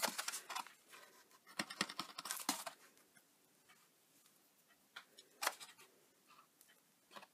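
Faint taps and paper rustles of a cardstock box being handled and pressed while its bottom is glued, with a few sharp clicks among them; the busiest stretch is in the first three seconds, then only a couple of isolated clicks.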